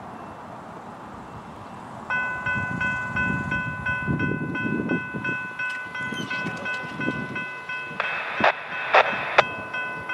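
Railroad grade-crossing warning bell starts about two seconds in and rings in quick repeated dings, about three a second, as the crossing activates for an approaching train. A few sharp knocks sound near the end as the crossing gate arm begins to lower.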